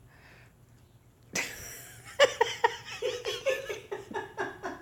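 A woman laughing: a sudden breathy burst about a second in, then a rapid run of short, pitched laughs.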